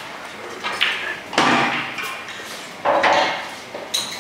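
Pool balls on a pub pool table: about four knocks and clacks, one trailing off in a longer rumble, with a sharp ringing click near the end, typical of balls striking and rolling through the table's ball-return channel.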